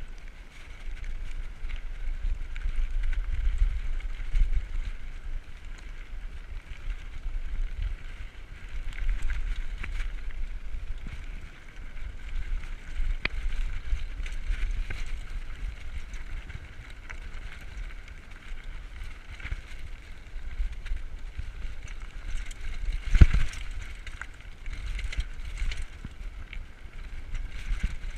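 Diamondback Recoil 29er mountain bike riding over a rocky dirt trail: a steady rattle and crunch of tyres on loose stones, with wind buffeting the microphone. There is one sharp, loud knock of a hard hit on a bump late on.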